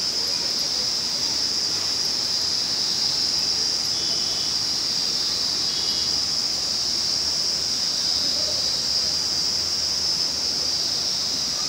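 Steady outdoor ambience: an even rushing noise with a continuous high-pitched hiss over it, unchanging throughout.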